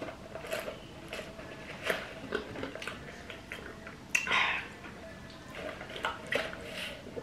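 Close-up mouth sounds of someone drinking soda through a plastic straw from a paper cup: sipping, with wet lip smacks and small clicks, and one louder breathy burst about four seconds in.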